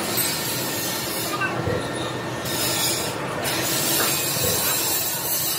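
Steady workshop machinery noise, an even rumbling hiss with no clear beat, whose high part thins out briefly twice near the middle.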